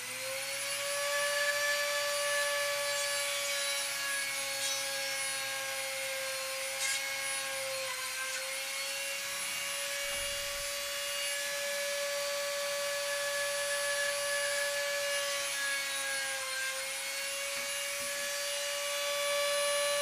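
Dremel rotary tool with a small drill bit, boring a hole through a wooden pencil: a steady high whine that winds up to speed at the start. The pitch sags briefly twice, about eight seconds in and again a few seconds before the end, as the bit bites under load.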